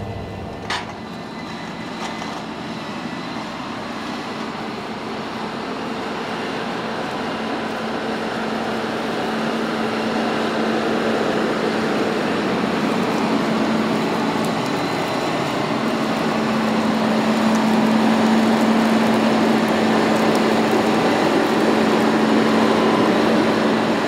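Fendt 939 tractor's six-cylinder diesel engine running under steady load while pulling a plough through the soil, with a constant low hum. It grows steadily louder as the tractor comes closer and is loudest in the second half.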